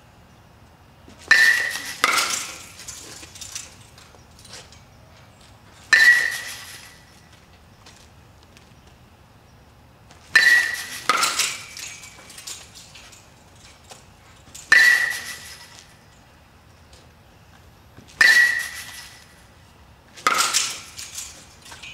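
Metal baseball bats striking balls held on batting trainers. Each hit is a sharp, ringing ping, about nine in all, coming every few seconds and sometimes two within a second of each other.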